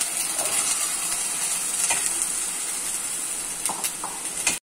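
Oil sizzling steadily in a steel pan as sliced small onions (shallots) go into frying ginger-garlic paste. A metal spoon scrapes and clinks against the pan a few times.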